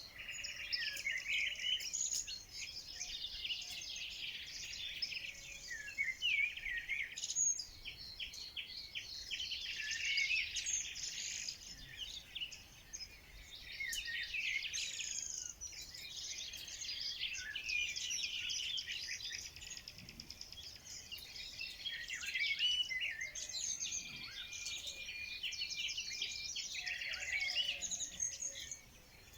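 Chorus of many small songbirds chirping and trilling at once, a dense, unbroken tangle of high, overlapping calls.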